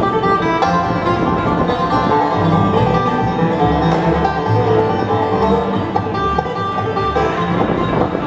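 Bluegrass band playing, with banjo to the fore over guitar and low bass notes that come in a couple of seconds in.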